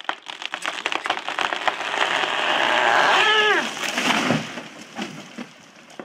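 A cut tree falling: rapid cracking and snapping of splintering wood, building into a loud rushing crash of the branches hitting the ground about two to three and a half seconds in, with a short cry over it, then dying away.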